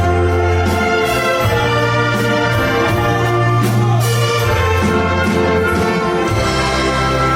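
Wind orchestra playing a medley of Korean popular songs, with brass carrying the tune over sustained low bass notes.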